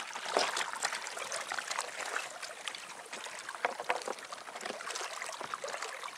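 Lake water splashing and trickling along the hull of a small boat as it moves: a steady watery hiss with many small, quick splashes.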